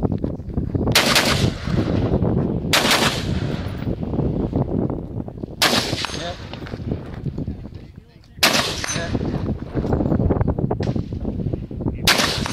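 Rifle fired one aimed shot at a time: five loud shots spaced one to three seconds apart, each with a short fading echo, over a steady low rumble.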